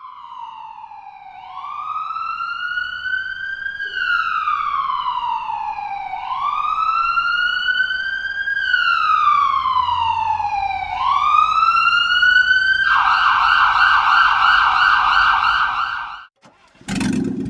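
Ambulance siren wailing, its pitch slowly rising and falling three times, then switching to a fast warbling yelp for a few seconds before it cuts off abruptly.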